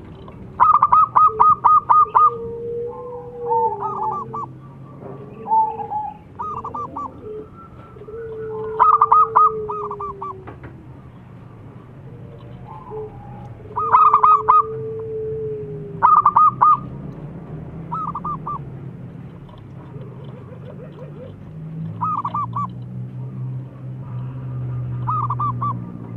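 Zebra doves (perkutut) calling: bursts of rapid staccato cooing notes, repeated every few seconds, with longer, lower sliding coos between them. A low hum grows louder near the end.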